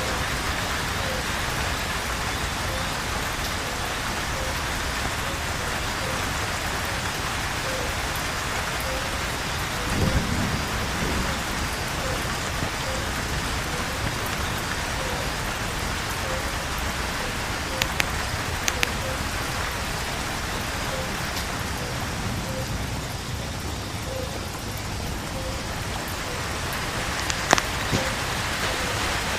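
Steady heavy rain falling on foliage and ground, with a short low rumble of thunder about ten seconds in. A few sharp drops or drips click close by later on, and a faint regular pulse repeats in the background.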